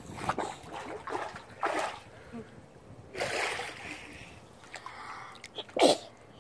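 Pool water splashing in several short bursts, the loudest near the end, as a small child swims and kicks.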